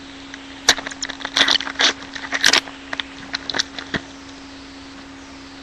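A foil pack of trading cards being torn open and handled: a run of sharp crinkles and crackles for about three seconds, then it goes quiet over a faint steady hum.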